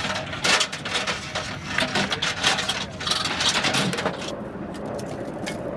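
Linked machine-gun ammunition belts clinking and rattling as they are handled and fed into a helicopter door gun: a quick run of metallic clicks and clatters. About four seconds in the clatter stops and a steady mechanical hum remains.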